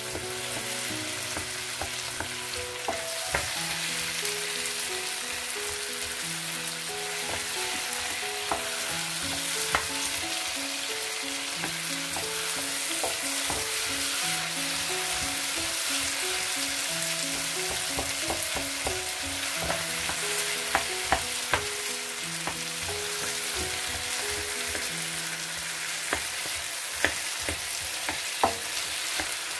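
Onion, tomato and potato masala sizzling in a hot wok while a wooden spatula mashes and stirs the boiled potatoes, with occasional sharp knocks through the steady frying hiss.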